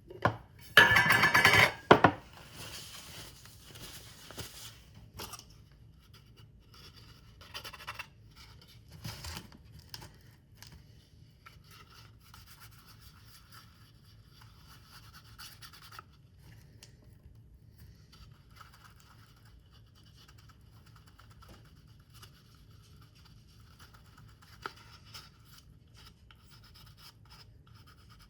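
Paper and card being cut, creased and rubbed by hand: a loud rasping rip lasting about a second near the start, then quiet scratching and rubbing strokes with scattered small clicks.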